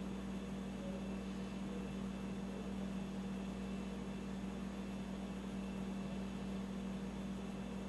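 Steady low hum over a constant hiss, with no distinct events: room tone with electrical or appliance hum.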